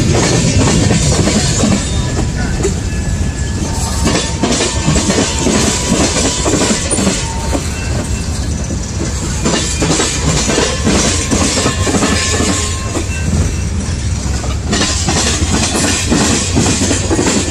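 Loaded freight cars of a CSX manifest train (tank cars and a covered hopper) rolling past close by. There is a steady rumble, and the wheels click and knock over the rail joints again and again.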